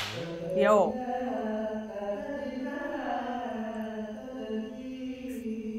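A man singing long, drawn-out notes in a chant-like style, the pitch sliding slowly between held tones; he is singing along to a karaoke track while working.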